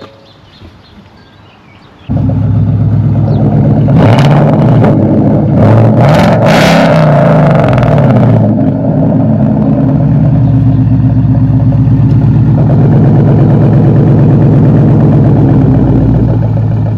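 Ford Mustang GT's 5.0 V8 exhaust, just given a custom tune, comes in suddenly about two seconds in. It revs with the pitch rising and falling for a few seconds, then settles into a steady drone.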